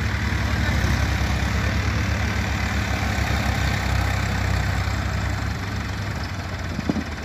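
Tractor diesel engines running with a steady, even low chug as a tractor hauls a loaded trolley. There is a single short click near the end.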